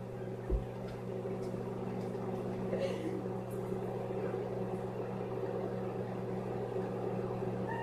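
Microwave oven running with a steady low hum. A single low thump about half a second in.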